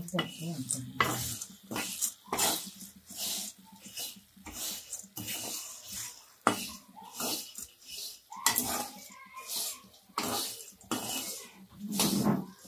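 Metal spatula scraping and clanking against a black kadai as peeled field beans are stir-fried in oil. The strokes come irregularly, roughly one a second.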